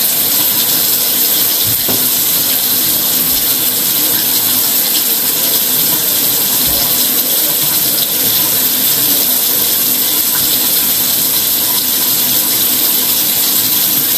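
Running water: a steady, even hiss, mostly high-pitched, with no breaks.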